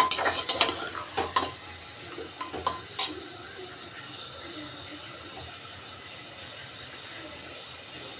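Steel spoon stirring and scraping mutton pieces against the sides of an aluminium pressure cooker, with several sharp clanks in the first three seconds, then a steady sizzle of the meat and ginger-garlic paste frying in oil on low flame.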